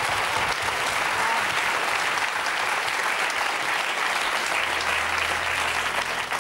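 Studio audience applauding, a dense, sustained patter of many hands clapping, in response to the contestant turning down the offer with "no deal". A low steady tone comes in about two-thirds of the way through.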